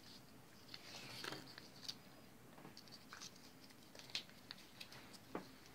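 Faint scattered ticks and soft rustles of a small piece of paper being folded and handled between the fingers.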